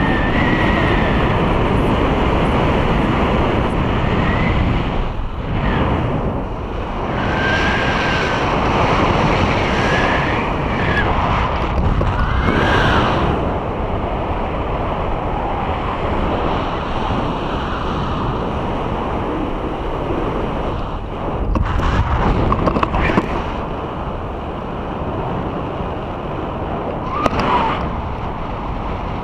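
Heavy wind buffeting on an action camera's microphone held on a selfie stick during a tandem paraglider flight, a loud, unbroken rush that swells and eases as the wing banks through steep turns. A few short high-pitched sounds rise and fall over the rush, about a second in, around 4 and 7–13 seconds, and near the end.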